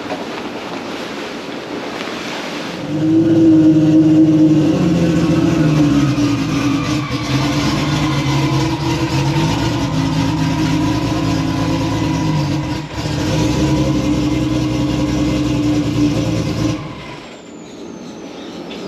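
Car engine and exhaust running at a steady drone, its pitch drifting slowly up and down. It sets in about three seconds in after a rushing, wind-like noise and cuts off abruptly near the end.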